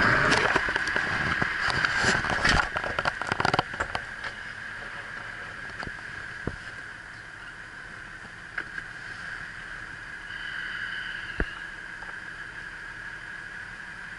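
Knocks and clatter of someone climbing into a Freightliner snow plow truck's cab, then a steady hum inside the closed cab.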